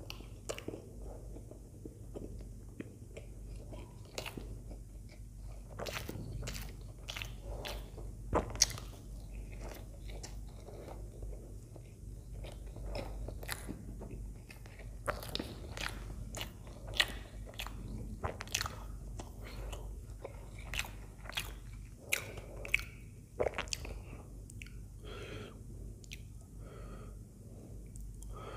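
Close-miked chewing and wet mouth sounds of a person eating soft idli soaked in sambar, with irregular sharp lip smacks and clicks, a few each second and a handful louder than the rest.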